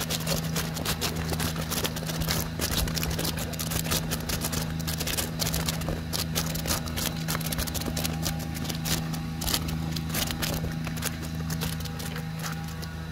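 A steady low machine hum under dense, irregular clicking and crackling.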